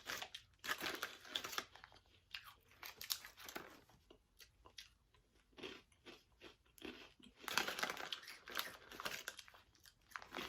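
A person chewing crunchy adobo-flavoured corn nuts with the mouth close to the microphone, a quick irregular run of crisp crunches. The crunching is heaviest in the first two seconds and again past the middle.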